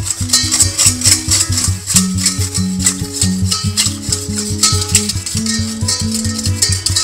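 Background music with a steady beat of quick high ticks over a bouncing, stepping bass line.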